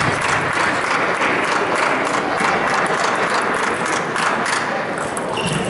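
Applause from a crowd: a steady, dense patter of many claps with no break.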